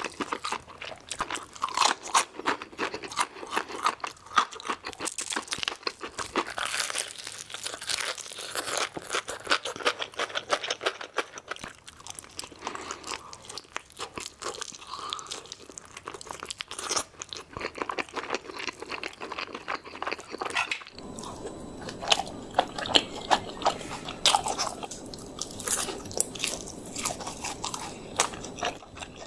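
Close-miked biting and chewing of crispy fried chicken: dense, irregular crackling crunches of the fried coating with wet chewing between bites.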